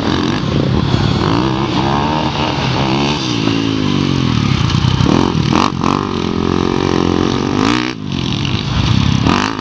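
Several sport quad (ATV) engines revving hard while racing, the engine pitch climbing and dropping again and again as the throttle is worked, with a brief dip in level about eight seconds in.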